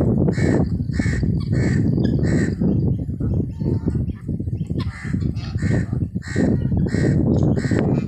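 Poultry calling: one harsh call repeated about one and a half times a second, with a pause of about two seconds near the middle, over a steady low rumble.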